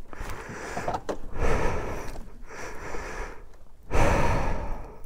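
A person breathing hard close to the microphone: several long, noisy breaths in a row with short pauses between them.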